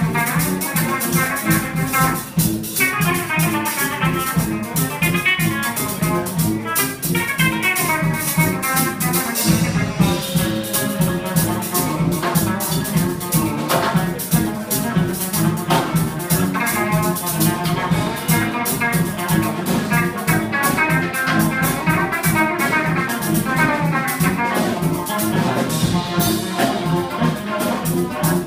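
A live band playing a tune: horns (trombone, trumpet and tuba) carry the melody over a drum kit keeping a steady beat.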